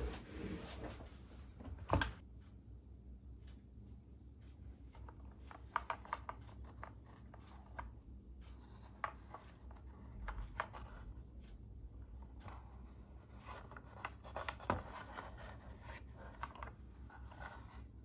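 A plastic toy RC car being handled and turned over in the hands on a table: scattered light clicks, taps and rubbing, with one sharp knock about two seconds in.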